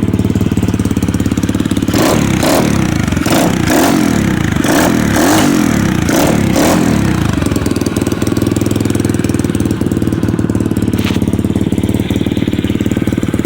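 SSR mini bike engine idling steadily on its freshly rebuilt carburetor, running without starter fluid. Between about two and seven seconds in it is revved in several quick blips that rise and fall, then it settles back to idle.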